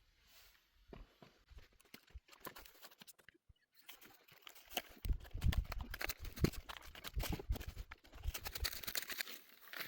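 Irregular rustling with quick clicks and taps, sparse at first and then dense and busier from about four seconds in.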